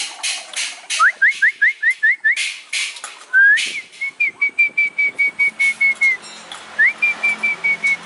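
Blue magpie calling: six quick rising whistled notes, then two runs of short clear whistles held on one pitch, with loud harsh rasps in between.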